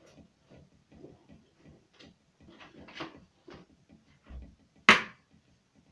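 Small objects being handled and set down: faint ticks about twice a second, a dull knock about four seconds in, then one sharp loud clack just before five seconds.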